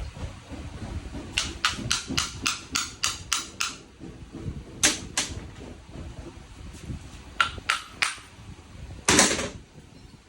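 Workshop bench work: a quick run of about nine sharp taps, then a couple of single taps, a short group of three, and a longer, louder knock near the end, as of a hammer or hand tool striking metal.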